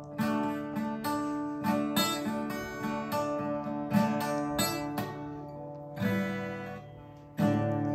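Acoustic guitar strummed by hand, chords struck about every half second and left to ring, with one chord held longer before a fresh strum near the end.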